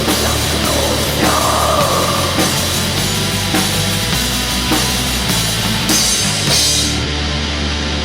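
Black metal band playing: distorted guitars, bass and drums with cymbals. About seven seconds in the drums and cymbals stop and only the sustained guitar and bass carry on.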